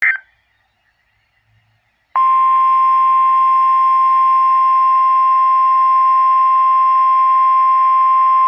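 A brief screech of digital SAME header data at the very start, then about two seconds of near quiet before the NOAA Weather Radio warning alarm tone (1050 Hz) comes on: one steady, unbroken high-pitched tone over a haze of radio hiss. It signals that a Special Marine Warning is about to be broadcast.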